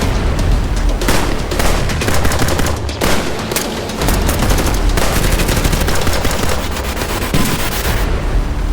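Recorded gunfire sound effects: rapid automatic fire, shots packed close together in long bursts, with a few heavier separate shots in the first seconds. The firing stops about eight seconds in.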